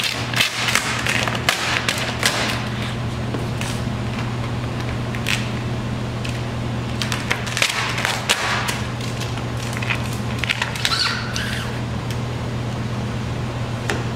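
Vvivid vinyl wrap film crackling and rustling as it is pulled, stretched and squeegeed over a car hood's edge, in irregular crackles over a steady low hum.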